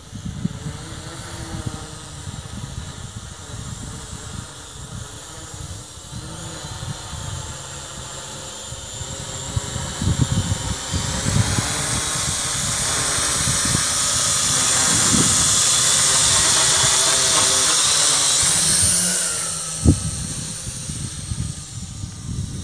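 WLtoys Q333B toy quadcopter's electric motors and propellers whining, growing louder from about ten seconds in as it flies close, then fading near the end. Wind gusts rumble on the microphone throughout, and there is one sharp click about twenty seconds in.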